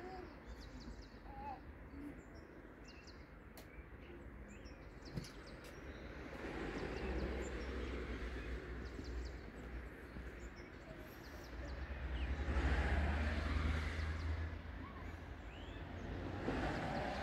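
Outdoor evening ambience: small birds chirping and twittering on and off, over a low rumble of distant traffic that swells up twice, about six seconds in and again about twelve seconds in.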